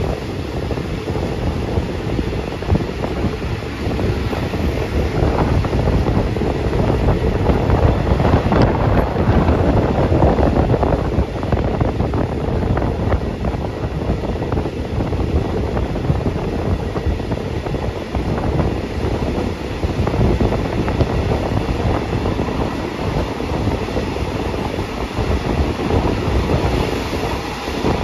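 Passenger train running along the line, heard from on board the carriage: a continuous rumble with the clatter of wheels over the rails, swelling a little about a third of the way through.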